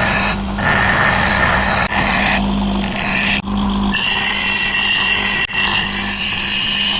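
A motor-driven power tool running steadily with a high whine over a low hum, in several short stretches that change abruptly, as if cut together.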